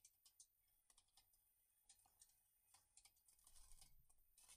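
Near silence with faint, scattered light clicks and taps as stacked pine leg blanks and bar clamps are handled, a few bunched together about three and a half seconds in.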